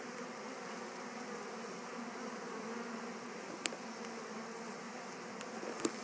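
A dense mass of honey bees buzzing at a hive entrance in a steady hum: a swarm freshly returned to its Warre hive and settling in. Two brief sharp clicks cut through, about three and a half seconds in and near the end.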